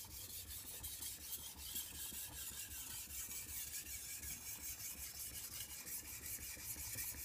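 Very hard steel knife blade (about 65–66 Rockwell) being sharpened on a Shapton Pro whetstone: a steady rasping scrape of steel on stone in quick back-and-forth strokes, several a second.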